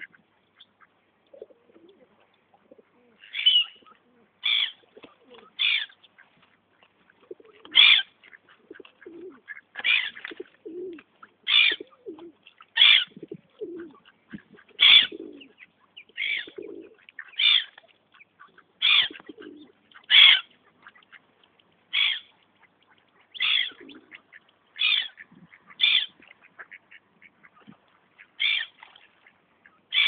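Gulls and mallard ducks calling: loud, short, high calls repeat every second or two, with quieter, lower calls in between.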